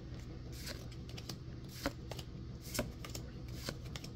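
Pokémon trading cards being flipped through by hand, each card slid from the front of the stack to the back, making a handful of short card flicks spread unevenly through a few seconds.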